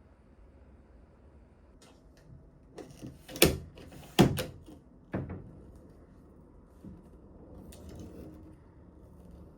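Something being handled, making a few light clicks and then three loud knocks about a second apart, followed by faint rustling.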